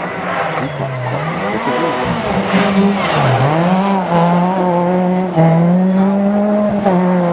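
Rally car driven hard past at close range: the engine dips in pitch twice, about one and three seconds in, then holds at high revs. A rush of tyre noise and spraying loose gravel comes as it slides by.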